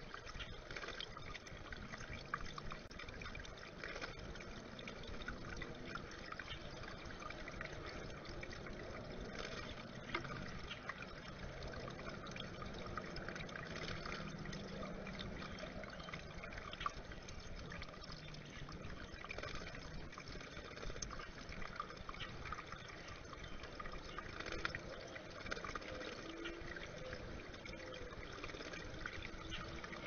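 Small stream of water trickling over rocks into a stone bird bath pool, with steady fine dripping and tiny splashes.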